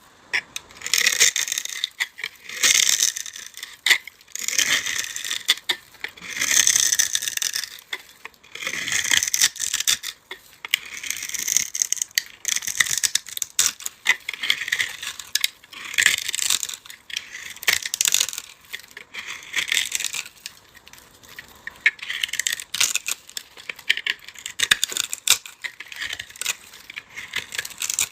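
A dry, crumbly block being crushed by hand in repeated crunchy, crackling squeezes, about one every second or two.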